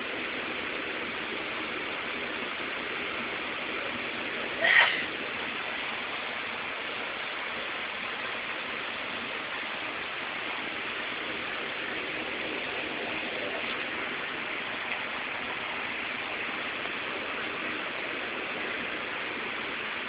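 Steady hiss, with a single short, sharp sound about five seconds in.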